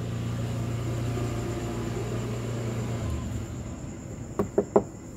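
Three quick sharp clicks of fingers pressing and tapping a metal emblem letter onto a car's trunk lid, near the end. Under them, a steady low hum that stops about three seconds in, and a steady high cricket trill.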